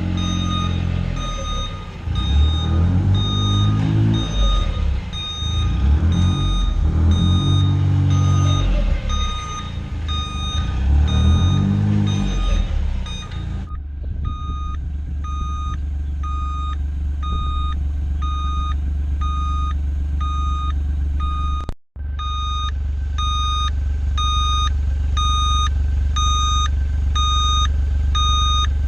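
Ecco backup alarm sounding steady, evenly spaced beeps at a single high pitch over a John Deere Gator's engine. For roughly the first half the engine's pitch rises and falls as it revs; after that it runs at a steady low hum.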